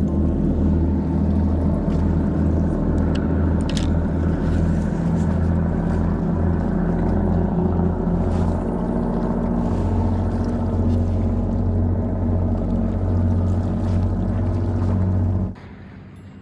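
An engine running with a steady low drone, which stops abruptly near the end.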